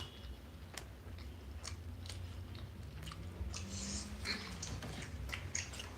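A person chewing and biting food close to the microphone, with scattered short clicks and smacks over a low steady hum.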